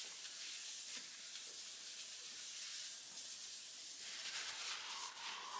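Paper tissue rubbed across a stainless-steel worktop: a soft, steady swishing hiss. About four seconds in it breaks into a few short rustles.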